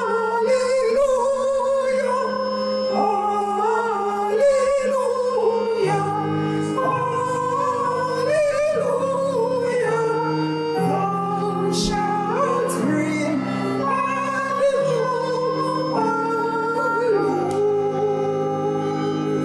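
Music: a slow sung melody with vibrato over held accompaniment chords.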